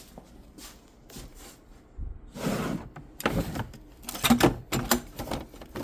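Adhesive tape being pulled off a roll: a rasping pull about two seconds in, then several quick, sharp pulls.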